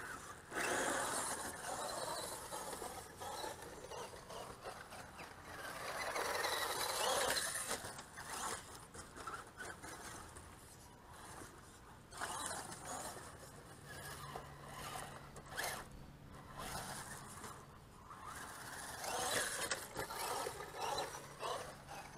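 RC monster truck driving hard on loose dirt: its motor revs in repeated surges with rising and falling pitch, mixed with tyres scrabbling and throwing dirt, the sound swelling and fading as it accelerates and moves around the track.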